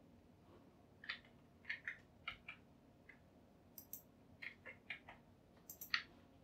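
Computer mouse and keyboard clicking irregularly, about fifteen short, faint clicks over a low hum, the loudest near the end.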